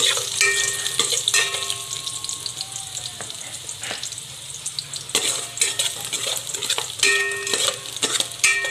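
Chopped garlic sizzling in hot oil in an aluminium pot while a metal spoon stirs it and knocks against the pot. A few of the knocks ring out with a short metallic tone, near the start and again near the end.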